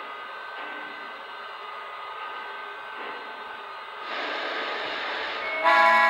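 Lionel Legacy model steam locomotive's onboard sound system: a steady steam hiss that grows louder about four seconds in. Near the end the locomotive's whistle sounds as a loud chord of several tones.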